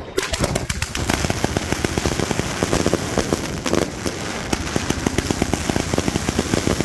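Funke Fireball 200 firework cake firing: a dense, unbroken run of rapid shots and crackling stars that starts abruptly.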